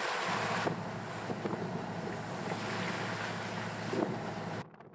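Wind buffeting the microphone and water rushing and splashing along the hull of a wooden sailboat beating into wind and swell, with a steady low hum underneath. It cuts off abruptly near the end.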